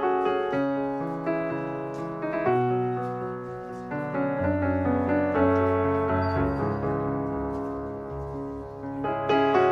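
Background piano music, one note or chord after another.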